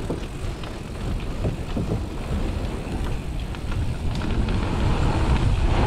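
Mountain bike rolling fast over a wooden plank boardwalk: a steady rumble of tyres on the boards with small rattles from the bike and wind on the microphone, getting a little louder in the second half.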